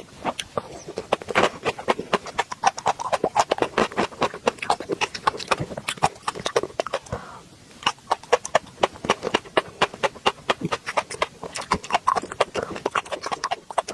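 Close-miked chewing of raw shrimp: rapid wet mouth clicks and smacking. There is a brief pause about seven seconds in.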